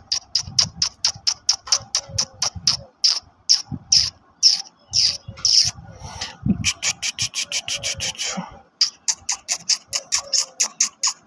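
Black-and-tan Rottweiler-type dog panting hard and fast, quick rhythmic breaths of about four to five a second with a few short pauses.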